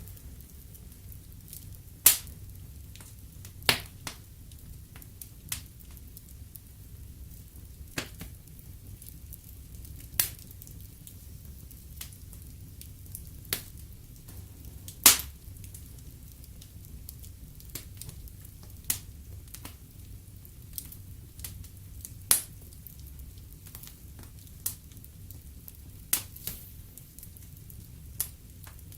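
Fireplace fire crackling: irregular sharp pops, about a dozen loud ones with the loudest about halfway through, over a low steady rumble of the flames.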